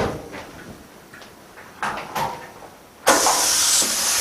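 A few faint clicks of handling. Then, about three seconds in, the LCD bubble remover machine starts its cycle with a sudden, loud, steady rush of air.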